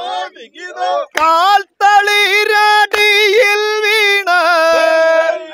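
Vanchipattu, the Kerala boat song, sung in short phrases that open into long held notes. A sharp beat stroke falls three times, about every two seconds.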